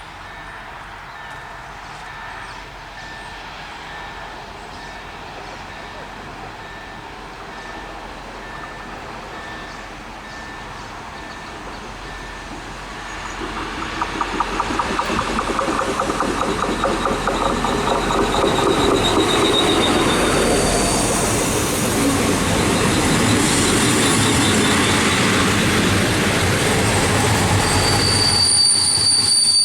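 A train approaching and running through a curved stretch of track, growing loud about halfway in, with a rapid rhythmic clatter of wheels over the rails. A high-pitched steady wheel squeal from the curve sets in near the end.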